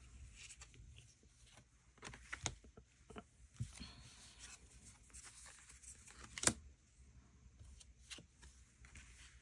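Tarot and oracle cards being slid, turned over and set down on a cloth-covered table: faint, scattered rustles and soft taps, with one sharper tap about six and a half seconds in.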